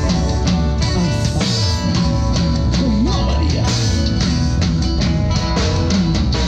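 Live band playing a song with guitar, bass and drum kit over a steady beat, in a stretch without sung words.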